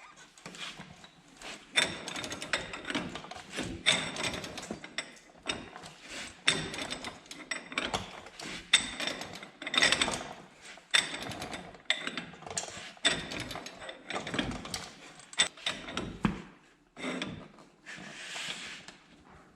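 Irregular metallic clicks and clanks, a little over one a second, from hand tools working a ball joint press while a new press-in ball joint is pressed into the steering knuckle.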